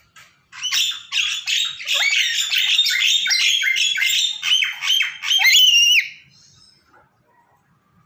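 Black-capped lory giving a rapid run of loud, harsh squawks and chattering whistles. The run lasts about five seconds, ends in a couple of rising whistled notes and breaks off suddenly.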